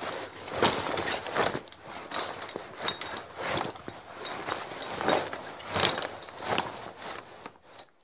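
Leather saddle and harness tack jostling at a near-steady pace, about two jolts a second: leather creaking and rustling while metal fittings jingle and rattle.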